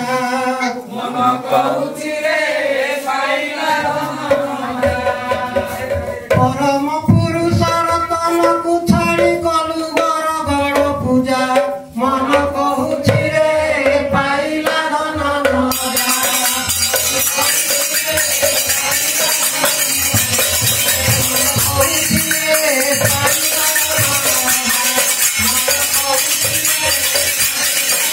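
Devotional group singing to a two-headed barrel drum and brass hand cymbals. About halfway through the singing gives way to fast, continuous cymbal clashing over the drumming.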